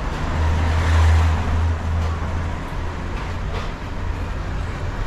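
An engine running with a steady low rumble under a rushing noise. It swells about a second in and the rumble eases after a little over two and a half seconds.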